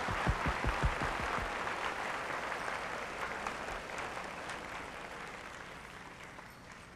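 Audience applauding after a dance performance, the clapping dying away gradually. A few low thumps come in the first second or so.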